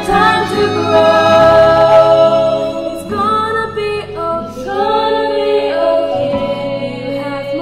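A woman's voice layered several times over into close a cappella harmony, singing held notes that change chord every second or so.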